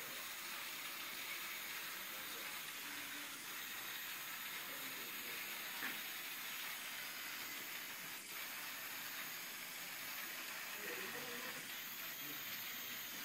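Steady hiss of background noise, with a short click about six seconds in and another about eight seconds in.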